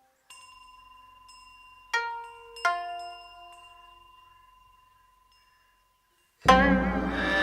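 Bell-like chime notes: a faint held tone, then two struck notes that ring out and slowly fade. Near the end, full instrumental music with bowed strings comes in loudly.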